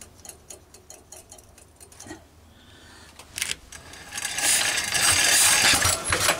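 Stationary petrol engine being started: a few light clicks and a sharper knock, then about four seconds in it catches and runs with a loud, rapid clatter.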